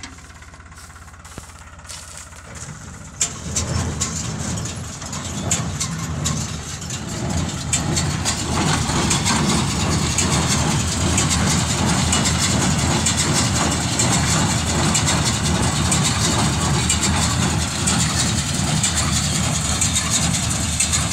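A tractor-drawn Maschio square baler working through straw: tractor engine and baler machinery running together. The sound gets louder about three seconds in and again around eight seconds in, then holds steady.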